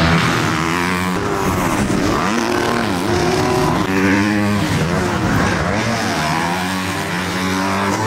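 Several motocross dirt bike engines revving up and down, one overlapping another, as the bikes race past and go off jumps.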